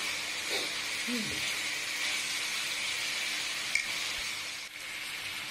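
Fried bulilit and onions sizzling in soy sauce in a hot wok, with one short click a little past halfway.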